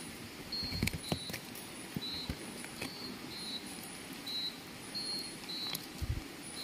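Scattered light clicks and knocks of wet river pebbles and a fishing net being handled, with a low thump near the end, over a steady hiss and short high chirps that repeat every half second or so.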